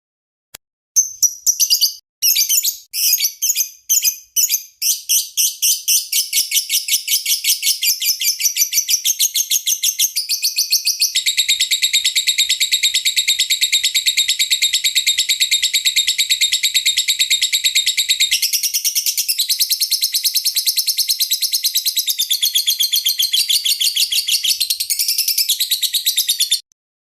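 Lovebird singing: high-pitched separate chirps start about a second in and quicken into a fast, unbroken chatter lasting some twenty seconds, which stops abruptly near the end.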